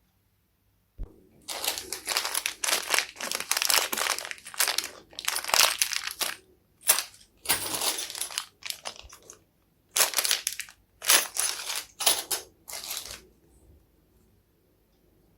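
Packaging being handled and crinkled in a string of irregular rustling bursts with short pauses, starting about a second in and dying away near the end.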